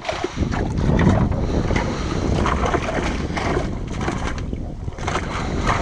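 Wind buffeting the microphone, with the rustle and patter of a wet cast net being handled over the livewell.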